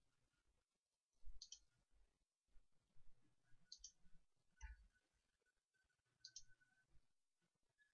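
Faint computer mouse clicks, each a quick double tick of press and release, three or four times roughly every two and a half seconds as points are marked one frame at a time.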